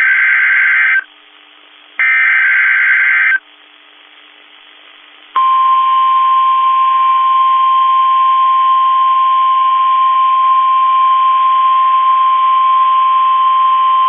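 NOAA Weather Radio Specific Area Message Encoding (SAME) alert: two buzzy digital data bursts of the coded header, the first ending about a second in and the second lasting about a second and a half. About two seconds later the steady 1050 Hz warning alarm tone starts and holds, announcing an alert message, a new tornado watch.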